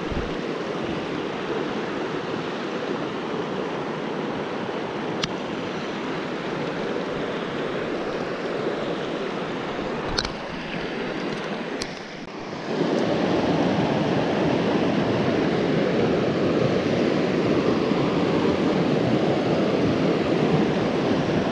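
Steady rush of flowing water, stepping up louder about thirteen seconds in, with a few faint clicks.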